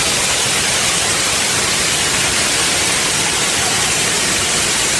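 Steady rushing of Shiraito Falls, many thin streams of water falling down a wide rock face, heard close up as an even, unbroken roar.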